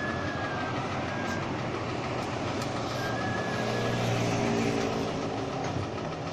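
Boom crane truck's engine running steadily, getting a little louder in the middle, with a faint high whine that comes and goes.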